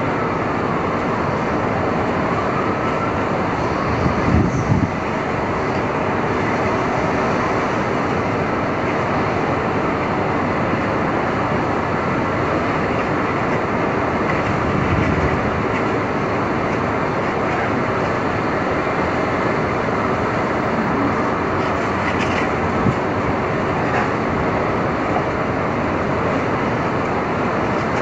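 Dense, steady roar of city street traffic, with heavier low rumbles from passing vehicles about four and fifteen seconds in.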